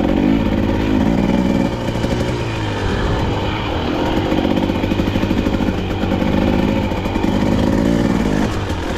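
KTM dirt bike engine revving up and easing off in repeated throttle pulses every second or two, with a steady low rumble underneath.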